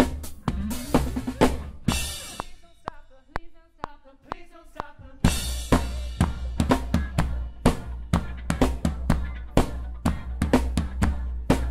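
Drum kit played live with a band: rapid kick, snare and cymbal hits that drop out for about three seconds to a few sparse hits under a quieter pitched line, then the full kit comes back in with a cymbal crash a little after five seconds.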